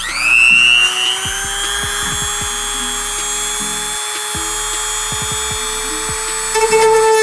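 Rotary tool with a sanding drum spinning up with a quick rising whine, then running at a steady high pitch. Near the end it turns rougher as the drum sands out the hole in the carbon fiber hood.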